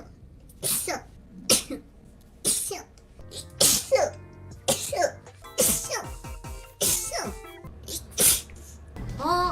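A young woman sneezing again and again, about eight sneezes roughly a second apart. Each is a short pitched intake followed by a sharp burst.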